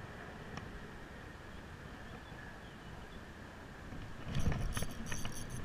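Steady outdoor hiss, then about four seconds in, thumps of rod handling and quick clicking from a spinning reel being cranked hard as a bass is hooked on the spinner.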